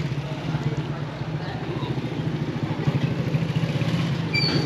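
A small engine idling steadily close by, a low even hum against street noise.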